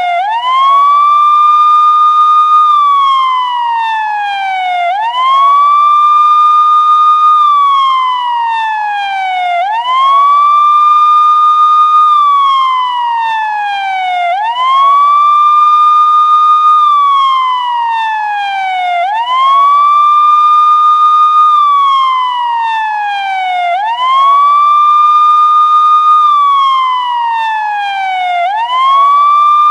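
Police siren in a slow wail: the pitch sweeps up quickly, holds high for about two seconds, then slides slowly back down, repeating about every five seconds.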